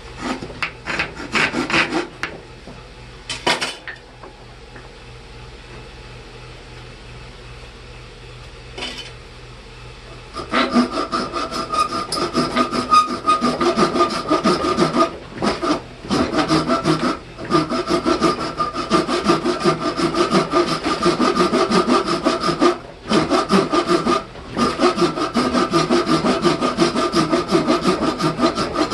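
Rapid scraping strokes of a hand tool working a workpiece, in a few short bursts at first and then steadily from about ten seconds in, with brief pauses.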